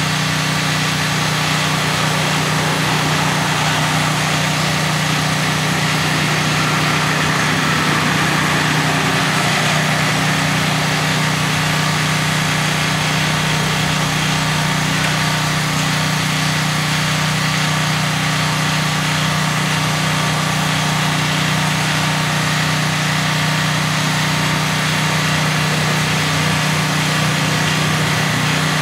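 Engine of the aerial work lift idling steadily, a constant hum that keeps the hydraulic boom powered while the basket is held up at the pole.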